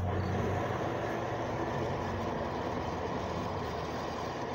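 Electric water pump with a newly replaced motor running steadily on its final test, pushing water into the pressure tank as the pressure builds; a steady, even whirring rush.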